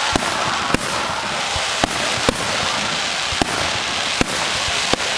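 Aerial fireworks going off: a steady dense rush of noise punctuated by about seven sharp bangs at irregular intervals.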